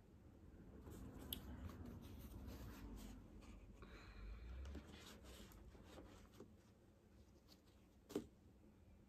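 Faint rustling and handling of watercolor painting materials: a brush being worked and wiped on a crumpled paper towel, with a light tap about a second in and a sharper tap near the end.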